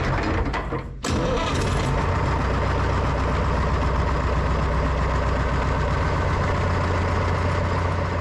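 Pettibone PM245 wheel loader's engine running steadily, loud close up, with a brief dip in sound about a second in. The engine is driving the Allison Torqmatic transmission's pump while clutch and torque-converter charge pressure build for a gauge test.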